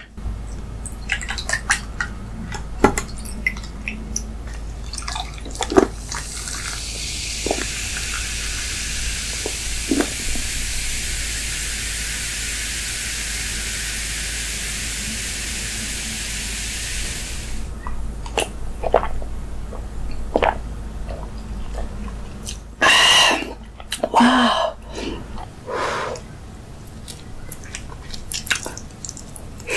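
Cola poured from a plastic bottle into a glass measuring jug, fizzing with a steady hiss for about ten seconds before it cuts off. Handling clicks come before and after, and loud mouth and eating sounds follow near the end.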